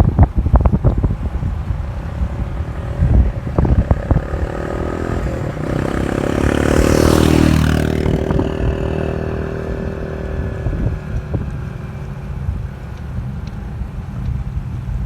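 A vehicle passes by. Its engine and tyre noise swells to a peak about seven seconds in, then drops in pitch and fades as it goes away, with wind buffeting the microphone.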